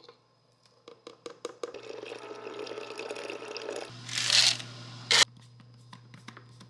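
Scoops of protein powder tapped into a plastic blender cup, then water pouring in. Ice cubes clatter into the cup in a loud rush about four seconds in, with another sharp clatter a second later, and light clicks follow as the blade base is fitted onto the cup.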